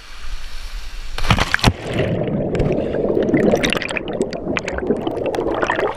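Jumping feet-first into a river pool: a splash about a second in as the camera plunges under, then muffled underwater rushing with bubbles crackling and fizzing around the mic.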